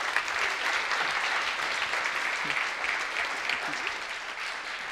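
Audience applauding: a dense, steady patter of many hands clapping that eases slightly toward the end.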